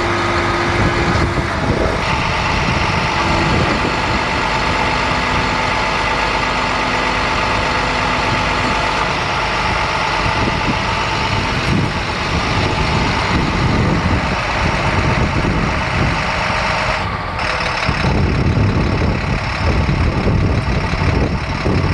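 Diesel engine of a 2011 International 4300 bucket truck running steadily, a continuous low rumble with steady whining tones over it.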